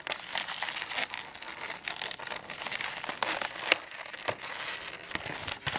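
Inflated brown latex modelling balloons handled and rubbed together in the hands: steady rubbery rustling and crackling, with a few sharper clicks about three to four seconds in.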